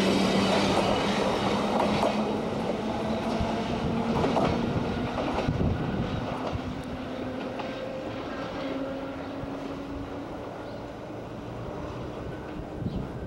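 Meitetsu 3400 series electric train passing close and running away: a motor whine that climbs slowly in pitch over the wheel and rail noise, with a few knocks of the wheels over rail joints, fading as the train recedes.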